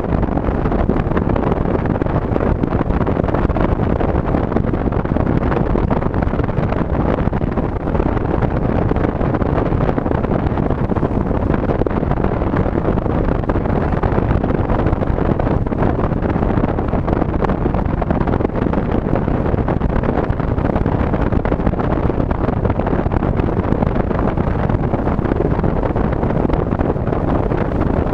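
Steady road and wind noise of a car driving at an even speed.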